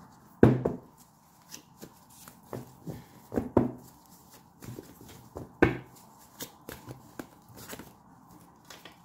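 A tarot deck shuffled by hand: the cards rustle and slap, with a few sharper knocks, the loudest about half a second in.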